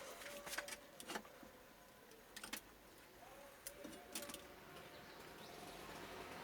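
Soldering iron and small tools touching a TV circuit board while a transistor is desoldered: a few faint, scattered light clicks over near silence.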